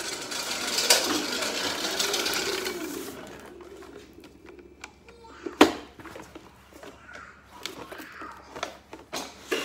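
Hoverboard go-kart's electric motors whining as its wheels roll across a concrete floor, fading out after about three seconds. About halfway through comes one sharp, loud bang, followed by scattered knocks and scuffs as the kart and rider tip over onto the floor.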